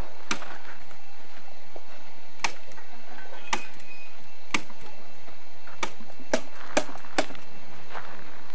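Distant pistol shots from elsewhere on the range: about eight short, sharp cracks at irregular gaps, the last few closer together, over a steady hiss.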